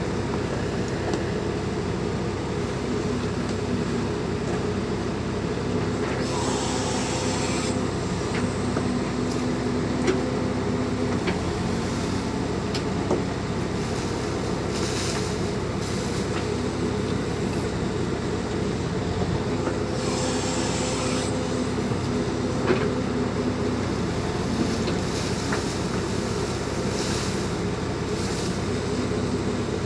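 Bull backhoe loader's diesel engine running steadily while it works, with scattered clicks and knocks and two brief stretches of hiss, about six and twenty seconds in.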